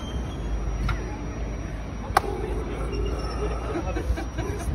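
Busy city street ambience: a steady low rumble with the murmur of passers-by's voices, and one sharp click about two seconds in.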